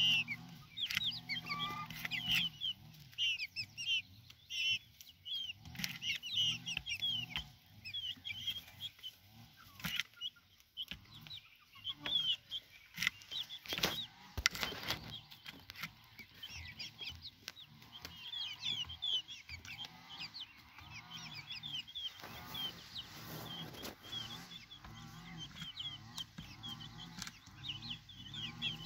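A flock of young chickens peeping, a constant run of short high whistly chirps, with low clucks mixed in here and there.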